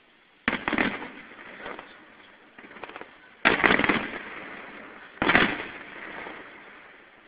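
Aerial fireworks shells bursting in the sky: three loud bangs, about half a second in, midway and about two-thirds through, with a smaller pop between. Each bang trails off in a fading crackle and rumble.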